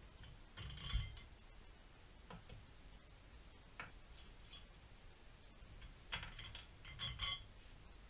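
Hand ratchet wrench clicking in two short runs, about a second in and again around six to seven seconds in, with a few single metal clicks between.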